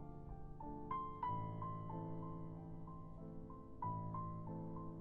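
Soft background piano music, a slow melody of sustained notes.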